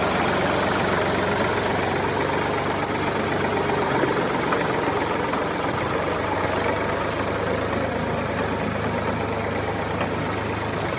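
A mini tractor's motor running steadily with an even low hum, holding the same speed throughout.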